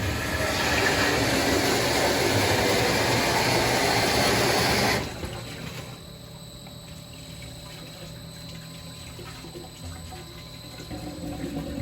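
Water rushing out of a sprinkler system's opened test/drain valve during a waterflow alarm test. It is loud at first, then about five seconds in drops suddenly to a quieter steady flow.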